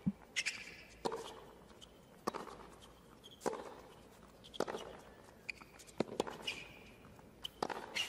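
Tennis rally on a hard court: racquets strike the ball back and forth about every 1.2 seconds, around seven hits with a short echo after each. Brief high squeaks from players' shoes come between the hits.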